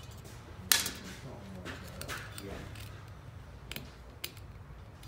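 A small steel screwdriver picks and pries inside the valve pockets of an aluminium motorcycle cylinder head, making scattered sharp metallic clicks and light scrapes. The loudest click comes about a second in, with a few more spread through the rest.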